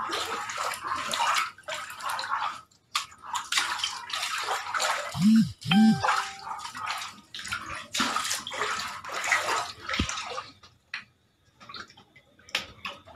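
Water splashing and gushing in irregular surges, with short quieter gaps. A brief tone sounds about six seconds in.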